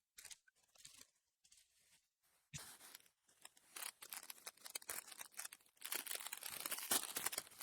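Faint crinkling and tearing of a foil Yu-Gi-Oh booster pack wrapper being opened, with the cards rustling. A single click comes about two and a half seconds in, and the crackling builds up from there.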